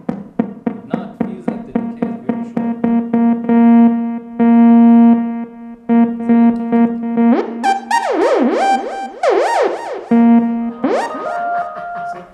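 Casio XW-G1 synthesizer playing a patch. It starts with quick, short repeated notes on a steady pitch, then moves into fast rising and falling pitch sweeps over the second half.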